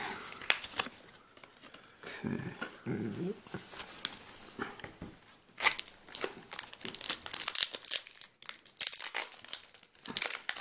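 Foil wrapper of a Yu-Gi-Oh booster pack crinkling and tearing, a run of sharp crackles from about halfway through, after a few soft handling sounds.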